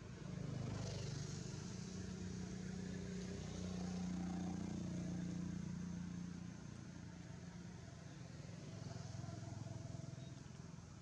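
A motor vehicle's engine running with a steady low hum. It grows louder just after the start, eases off about two-thirds of the way through, then rises again near the end.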